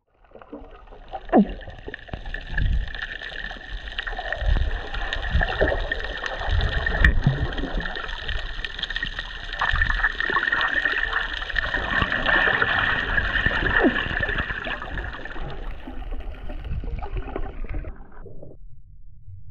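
Water splashing, sloshing and gurgling close to the microphone, rising and falling unevenly. It cuts off abruptly near the end, leaving a faint low hum.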